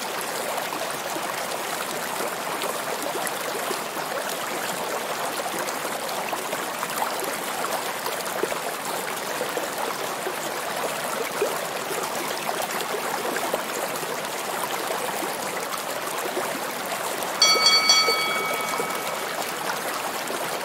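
Steady rushing, bubbling water noise picked up by a camera underwater in the sea. About three quarters of the way in, a loud steady high tone with overtones sounds for about two seconds.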